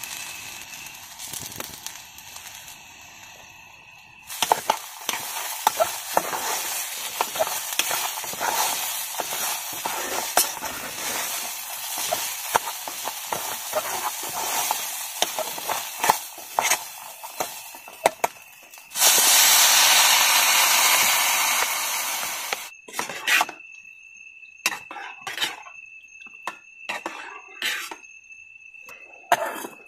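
Khichdi cooking in a pot: a spoon stirring and clinking against the pot over a steady sizzle. About 19 s in, a loud hiss rises for some four seconds. After it stops, a few knocks follow over a steady high tone.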